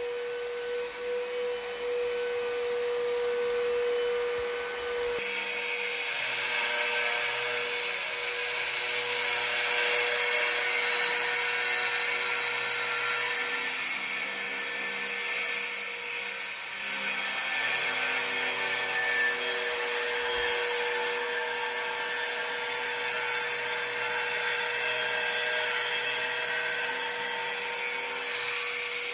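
Power saw cutting concrete: a steady motor whine, then about five seconds in the blade bites and a loud, gritty high hiss takes over and keeps going, easing off briefly past the middle before cutting on.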